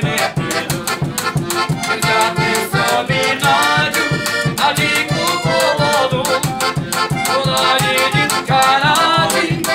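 Upbeat folk-style dance music: an accordion melody over a quick steady beat of about four strokes a second.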